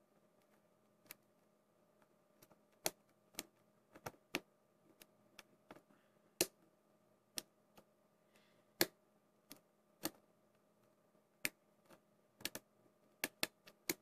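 A lock pick working the pin tumblers of a brass Tri-Circle padlock held under tension: faint, sharp metal clicks at an irregular pace, about twenty of them, some in quick pairs or triples.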